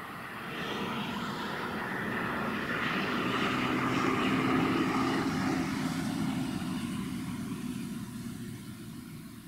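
An engine drone passing by: a steady hum that swells to its loudest about halfway through, then fades away.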